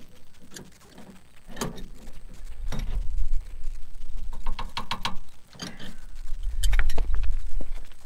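Scattered metallic clicks and taps of a hand wrench working a fitting on a heat pump's outdoor unit, with a quick run of clicks about halfway through, over an intermittent low rumble.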